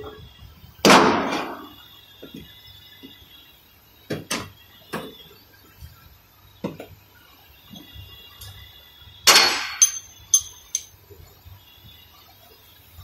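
Hammer blows on metal parts under a Toyota Land Cruiser, struck upward at irregular intervals: one hard blow about a second in, lighter knocks a few seconds later, and a cluster of loud strikes near the end, some with a short high metallic ring.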